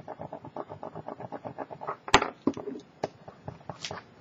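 A small hand tool rubbed rapidly back and forth over craft foil laid on double-sided tape on card, about nine short scratchy strokes a second, burnishing the foil onto the tape. A sharp click about two seconds in, then a few light ticks.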